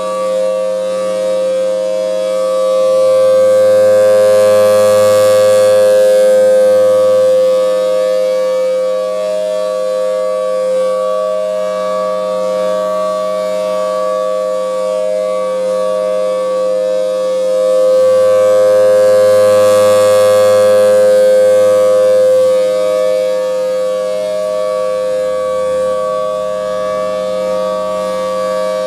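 Federal Signal Thunderbolt 1000T tornado siren sounding a steady tone at constant pitch. It swells louder and fades again twice, about 15 seconds apart, as the rotating siren head sweeps past.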